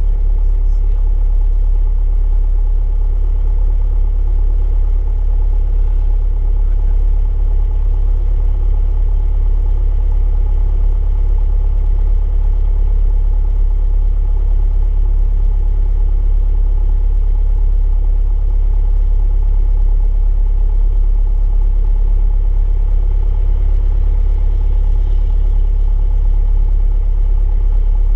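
Single-engine light aircraft's engine and propeller running steadily at low power while taxiing, a constant loud drone.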